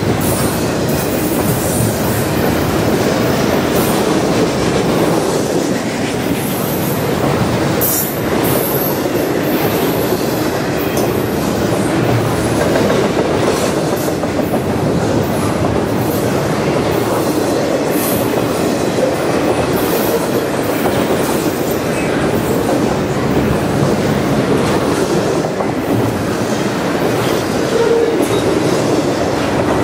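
Double-stack intermodal freight cars rolling past, a steady rumble of steel wheels on rail with occasional clicks as the wheels cross rail joints.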